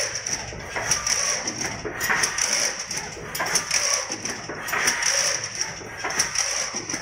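Hexagonal chicken wire mesh machine running at speed, twisting and weaving wire into mesh with a continuous metallic clatter and rattle. A high hiss runs through it, swelling and fading about once a second.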